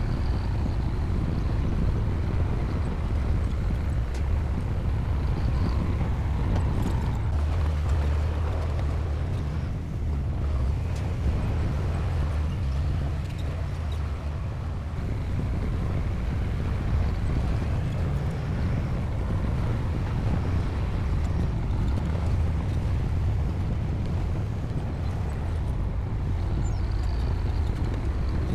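Bulldozer's diesel engine running steadily while working, a deep low rumble with no break.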